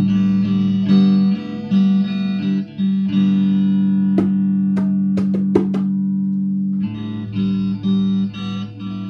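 Stratocaster-style electric guitar playing a repeating riff of short notes. Midway one note is held for about three and a half seconds, and a few sharp taps sound over it before the riff picks up again.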